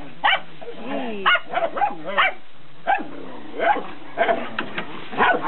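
A group of young dogs barking and yipping in short, sharp bursts, about a dozen in all, with whining between the barks.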